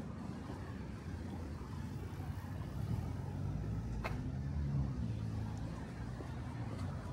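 Street traffic: a motor vehicle's engine running and passing, its low hum growing strongest about three to five seconds in. A single sharp click sounds about four seconds in.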